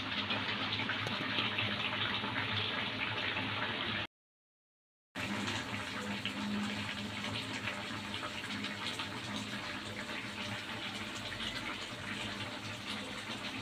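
Padang sauce simmering in a wok, bubbling and sizzling with a dense crackle of small pops as it cooks down to reduce. The sound drops out completely for about a second a few seconds in, then carries on.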